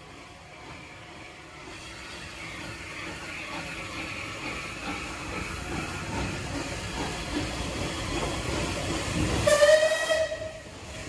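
Bulleid West Country class steam locomotive 34092 City of Wells working past, its exhaust beats and hissing steam growing louder. Near the end it gives one short, loud whistle blast of about a second.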